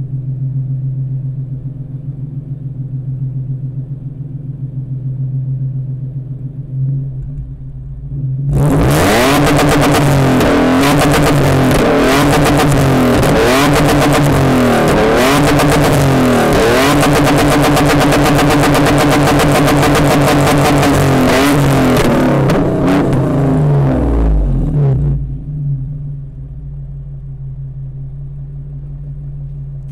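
Toyota Fortuner engine with headers and an open exhaust cutout, heard close at the tailpipe. It idles, then about eight seconds in is revved hard in repeated throttle blips for about fifteen seconds, then settles back to idle near the end.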